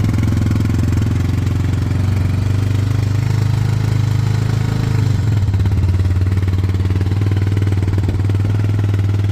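Suzuki LTZ 400 quad's single-cylinder four-stroke engine idling steadily on its stock exhaust, freshly started on a cold day. The idle settles to a slightly lower, even note a little over five seconds in.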